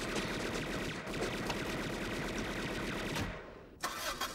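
Long rapid burst of submachine-gun fire, tapering off about three seconds in.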